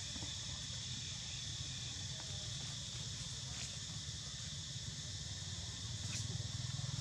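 Steady insect chorus, a continuous high buzz, over a low rumble that grows a little louder about six seconds in.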